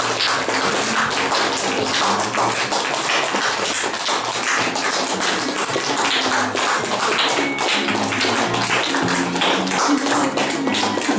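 An audience clapping, many quick sharp hand-claps, over background music with a steady bass line.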